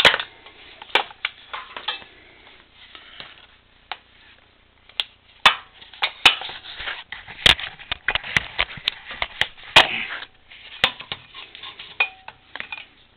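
Irregular clicks, knocks and light metallic clatter of parts and tools being handled while working on a moped, with a sharp click every second or so and a few louder knocks.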